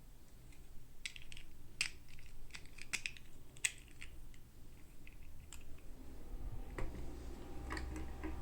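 Scattered light clicks and taps of small plastic toy pieces and packaging being handled during an unboxing, with a low hum rising in the last couple of seconds.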